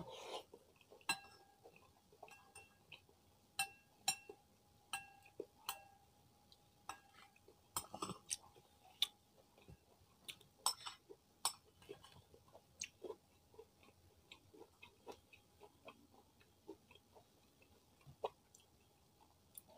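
Metal spoon clinking and scraping in a ceramic bowl of chicken porridge, with soft chewing and mouth sounds between. The sharp clicks come at irregular intervals, and some ring briefly.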